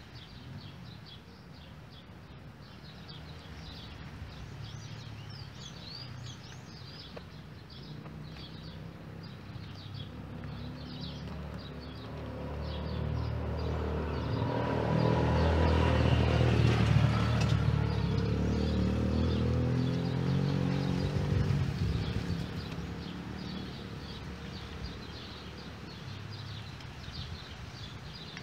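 A motor vehicle's engine passes by, a low hum that grows louder about halfway through, holds for several seconds, then fades. Steady high-pitched chirping continues in the background throughout.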